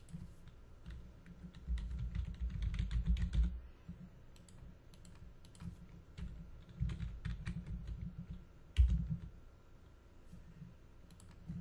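Computer keyboard typing in quick flurries of keystrokes, about two seconds in and again about seven seconds in, with scattered single key presses between and a single louder knock near nine seconds in.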